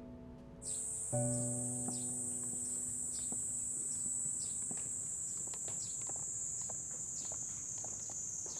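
A steady, high-pitched drone of insects starts about half a second in, with scattered short chirps of birds over it. Soft piano music fades out over the first few seconds.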